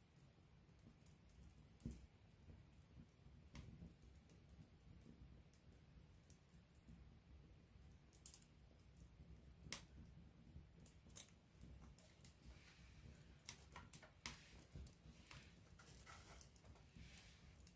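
Wood campfire crackling faintly: irregular sharp pops and ticks over a low steady rumble, coming more often in the last few seconds.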